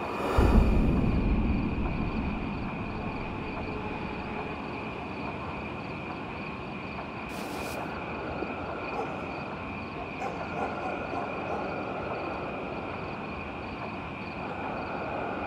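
Cinematic sound design: a deep boom about half a second in that fades over a couple of seconds, then a steady low rumble with a thin high whine above it and a few faint clicks later on.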